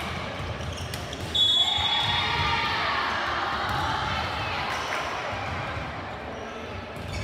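Basketball game in a gym: a ball thuds on the hardwood and the crowd talks. About one and a half seconds in comes a brief high whistle, and crowd noise swells after it and slowly dies down.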